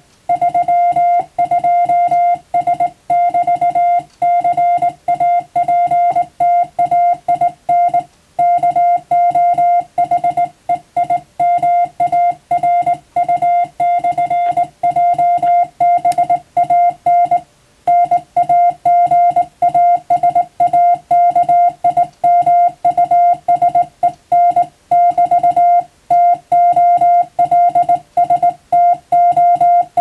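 Morse code sidetone, a steady beep of one pitch keyed by hand on a straight key, sending English telegram text as a rapid run of dots and dashes with short gaps between letters and words and one longer pause a little past halfway.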